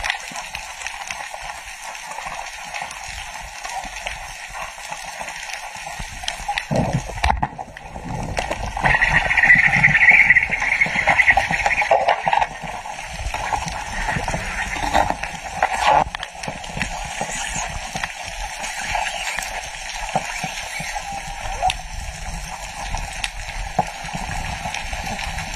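Water noise heard underwater through a camera housing: sloshing and gurgling with a fine crackle of clicks. It grows louder for a few seconds about nine seconds in.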